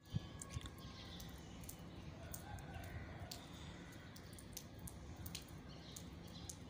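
A rooster crowing faintly, over scattered light sharp ticks.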